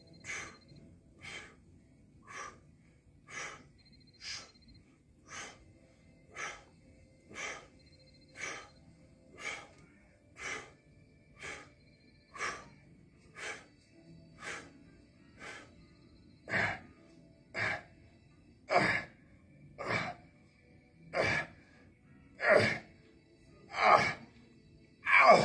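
A man's sharp, forceful breaths with each rep of seated overhead dumbbell triceps extensions, about one a second. They grow louder and harder over the second half and come a little slower near the end as he tires.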